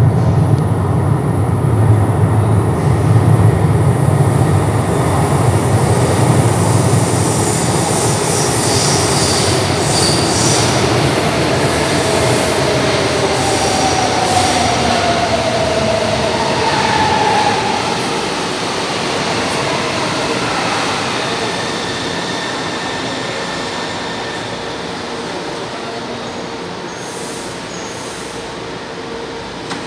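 São Paulo Metro train pulling into an underground station and braking to a stop. A heavy rumble rises a squeal partway through, then grows steadily quieter as the train slows to a halt.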